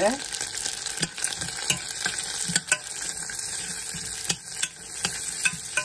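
Cashews sizzling as they fry in ghee in a stainless steel pan, with a metal spoon scraping and clicking against the steel several times as they are stirred.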